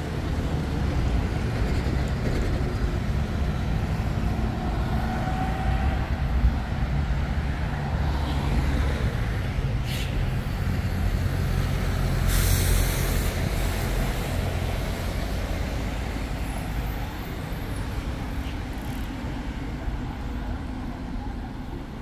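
Street traffic with a vehicle engine running close by as a steady low rumble, a single sharp click about ten seconds in, and a short burst of hiss just after twelve seconds.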